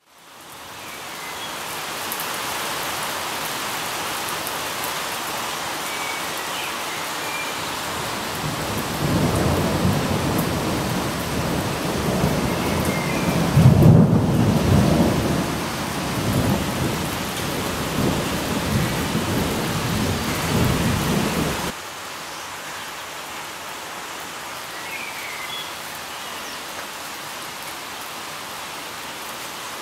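Steady rain falling, fading in at the start. From about nine seconds in, a long low rumble of thunder builds over it, loudest around fourteen seconds. The thunder cuts off suddenly a little after twenty seconds, leaving the rain alone.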